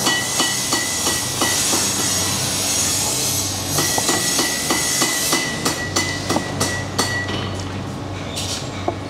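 Rhythmic hammering on metal in a forge, about three to four strikes a second, in two runs with a short break between them, over a steady machine hum.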